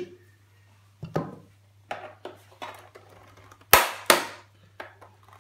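Plastic casing clips of a flat-screen monitor snapping loose as the case is pried apart: a series of sharp cracks, with the two loudest close together about four seconds in.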